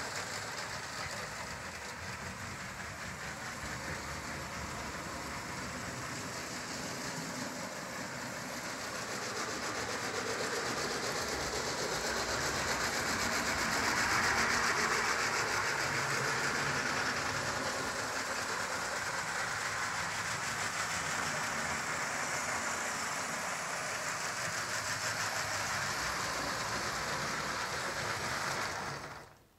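Lego train with two electric train motors running along plastic Lego track at about half speed: a steady whirring rattle of motors and wheels. It swells around the middle and cuts off suddenly near the end.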